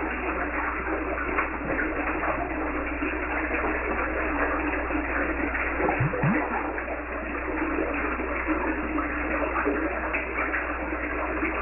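Steady rushing, bubbling water with many small crackles throughout.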